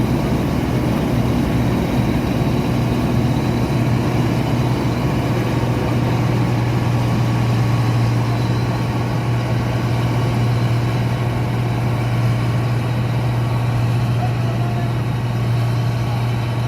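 New Holland 8070 combine harvester's engine running steadily at constant speed, with a strong, even low hum.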